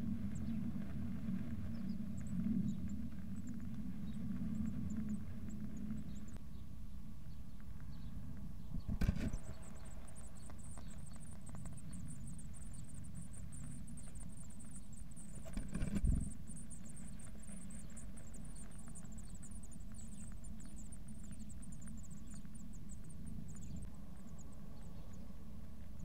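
Blue tit nestlings begging: a dense, very high-pitched chatter of rapid calls begins with a knock as an adult enters the nest box about nine seconds in, and runs on until near the end. A second knock comes at about sixteen seconds. A steady low hum sits underneath throughout.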